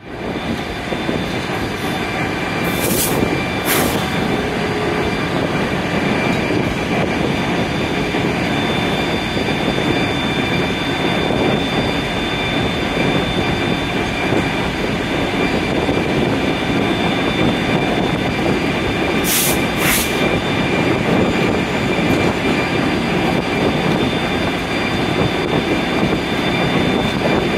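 Diesel work train rolling slowly on snowy track: a steady rumble of the locomotive and cars with a faint high whine. Two pairs of sharp clicks, a few seconds in and again about twenty seconds in, come from the wheels on the rails.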